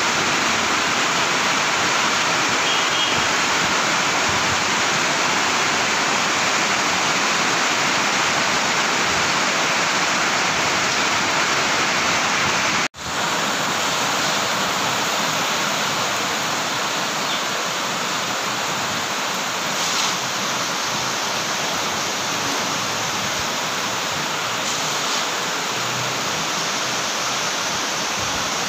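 Heavy typhoon rain pouring steadily, a dense even hiss. It breaks off for an instant about thirteen seconds in and resumes slightly quieter.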